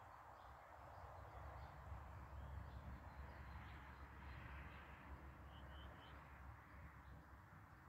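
Near silence: faint outdoor ambience with a low steady rumble and a few distant bird chirps, a short run of them about five and a half seconds in.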